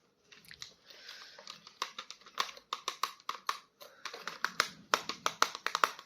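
Plastic toy packaging crinkling and crackling as it is handled and opened, with a quick run of sharp clicks that gets busier toward the end.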